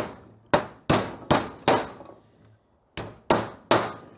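Hammer striking a pin punch to drive a pin out of a Honda GL1100 Goldwing front brake caliper. The hammer makes a run of sharp taps, about five in the first two seconds, then a pause and three more.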